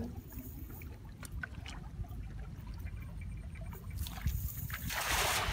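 A cast net thrown out over a river lands on the water with a brief splash about five seconds in, its weighted edge spattering across the surface. Faint rustles from the net being handled and a low wind rumble come before it.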